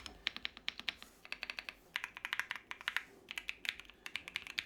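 Typing on a Keychron mechanical keyboard: quick runs of key clicks in several bursts with short pauses between them.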